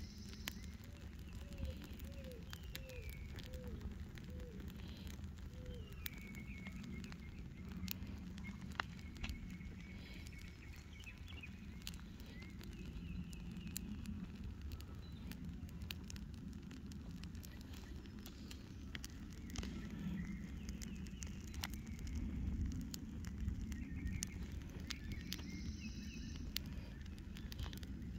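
Welcome mat burning on a charred stump: flames fluttering with a low rumble and scattered crackles and pops.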